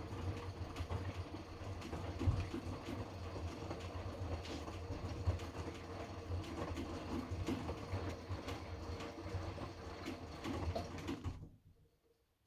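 Hotpoint washing machine running the heating phase of a 90° cotton wash: a steady motor hum with the drum tumbling the load, irregular clunks and knocks, until it cuts off sharply about eleven seconds in.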